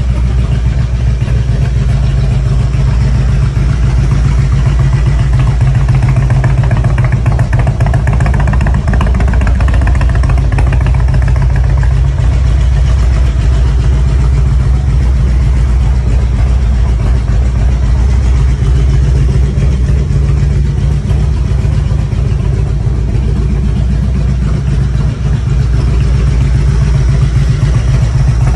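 Carbureted 1450 cc Harley-Davidson Road Glide's Twin Cam 88 V-twin engine idling steadily.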